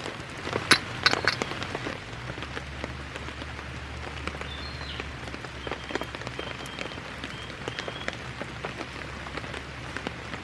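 Steady rain falling, with many individual drops tapping close by and a few louder taps about a second in.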